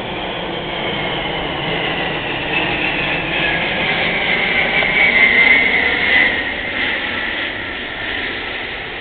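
Large four-engine jet transport aircraft flying low overhead: a steady jet roar with a high engine whine that slides down in pitch as it passes. It is loudest a little past halfway through, then fades.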